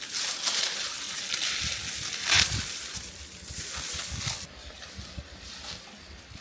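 Rustling and crunching of rice straw being handled during the harvest, with a loud crunch about two and a half seconds in; it grows quieter in the last couple of seconds.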